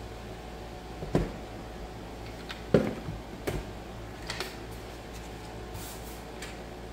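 A few light knocks and taps from handling a model's packaging and parts, the loudest about three seconds in, over a steady low hum.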